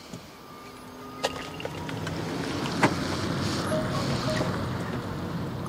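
Renault Zoé electric car pulling away slowly on wet tarmac: a quiet hum from its low-speed pedestrian warning sound and tyre hiss, growing louder. A couple of light clicks can also be heard.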